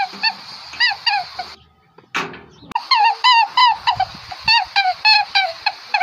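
A rapid run of short, high animal calls, each with a quick bend in pitch, about three a second. They break off for about a second, with a single knock in the pause, then start again.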